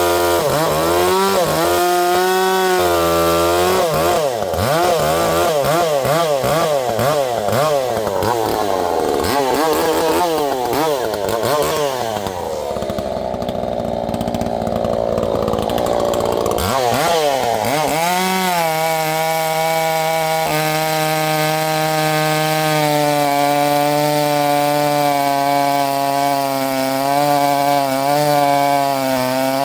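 Two-stroke gas chainsaw cutting wood, its engine speed rising and falling, then dropping into a duller tone in the middle of the cut. From a little past halfway it runs at a steady speed.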